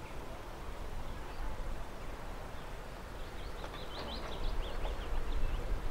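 Open-air background noise, a steady low rumble, with a small bird chirping in a quick run of short, high notes from about three and a half seconds in.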